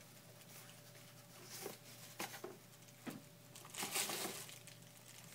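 Packaging crinkling and rustling in a few short bouts as the camera body is unwrapped, the longest bout about four seconds in.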